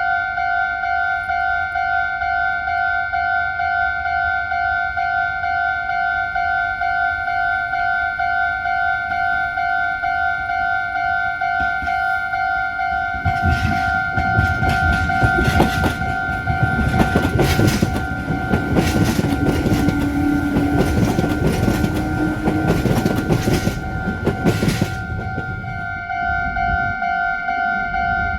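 Level crossing warning bell ringing steadily with a repeating electronic ding. From about halfway a train passes through the crossing for roughly twelve seconds, its wheels clicking over the rail joints. The bell keeps ringing after the train has gone.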